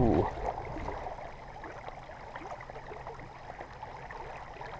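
Shallow river water flowing and gurgling, with many small scattered splashes.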